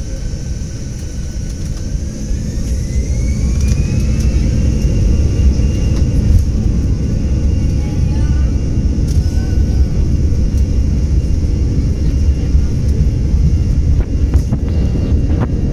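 Airliner's jet engines spooling up to takeoff thrust, heard from inside the cabin during the takeoff roll. A whine rises in pitch over the first few seconds while the rumble grows louder, then holds as a steady loud roar. A few sharp clicks come near the end.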